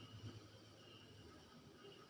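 Near silence: faint room tone with a weak steady low hum.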